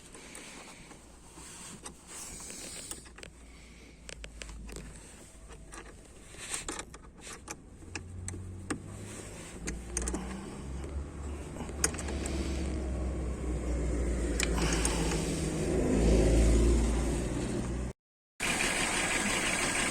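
Scattered clicks and knocks, then a BMW M52 straight-six engine started and running with a steady low rumble that grows louder. Diagnostics on this engine still show a misfire on cylinders one and two.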